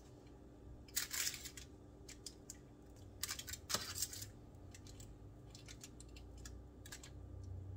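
Light scrapes and clicks of a utensil spreading buttercream frosting onto a layer cake, with louder scrapes about a second in and again around three to four seconds in.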